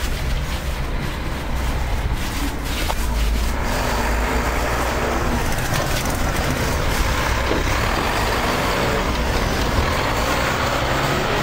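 Snowplow truck engine running steadily, with a heavy low rumble.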